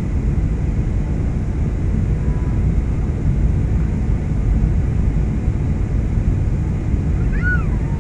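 Steady low rumble of jet airliner cabin noise, engines and airflow, during the descent to landing. Near the end a brief high squeak rises and falls in pitch.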